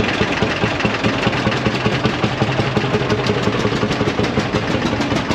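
Lanz Bulldog tractor's single-cylinder hot-bulb two-stroke engine running with a steady, rapid, even beat as the tractor moves off.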